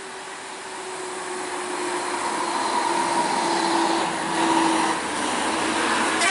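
A large tour bus approaching along the road: engine and tyre noise growing steadily louder, with a steady engine tone that sags slightly in pitch.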